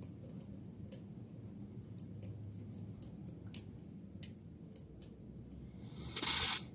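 Faint, scattered metallic clicks of lock picking tools working the pins inside a challenge lock, a couple of them sharper about halfway through. A short breathy hiss near the end.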